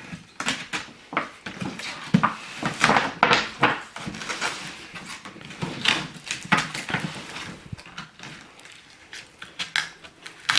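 Cardboard shipping box being handled and its packing tape cut with a steak knife: irregular scrapes, rustles and light knocks.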